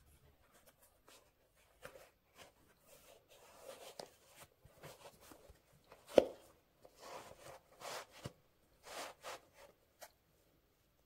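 Hands handling things at close range: scattered short rustles and light taps, with one sharper knock about six seconds in.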